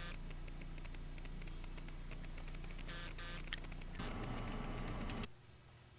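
Steady low electrical hum with a fine crackle, dropping away sharply about five seconds in.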